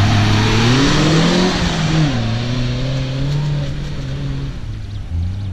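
An off-road 4x4's engine pulling hard under full throttle in second gear, its pitch rising, then dropping about two seconds in and holding steady as it fades away.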